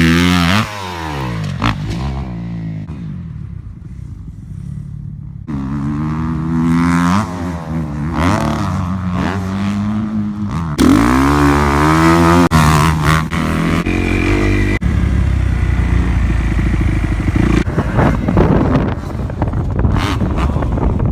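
Dirt bike engine being ridden hard, revving up and dropping back again and again as the rider works the throttle and gears. The sound changes abruptly a few times, as if cut between clips.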